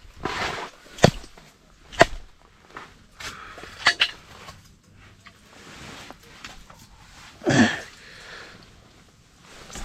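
Knocks and rustling from handling a just-landed burbot and fishing gear on the ice: a few sharp knocks about one, two and four seconds in, and a louder rustling scrape near the end.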